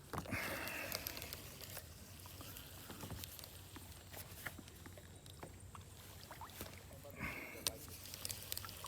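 Faint scattered clicks and knocks of fishing gear being handled aboard a kayak, with a brief hiss just after the start and again about seven seconds in.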